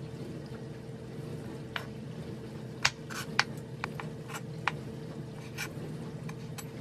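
Chef's knife cutting boiled pork belly on a plastic cutting board: irregular light taps of the blade striking the board as the pieces are sliced and trimmed, over a steady hum.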